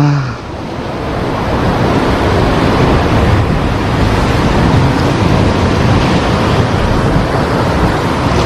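Heavy high-tide surf breaking against the shore: a steady rush of waves that builds over the first second.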